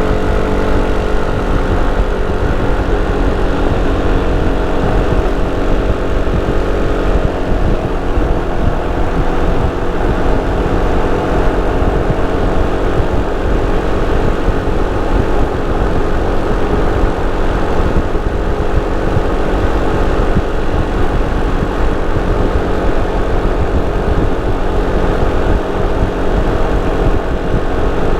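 Sym Cruisym 300 scooter's single-cylinder four-stroke engine and stock exhaust running steadily under way, with an even engine drone and low rumble and no sharp changes in revs.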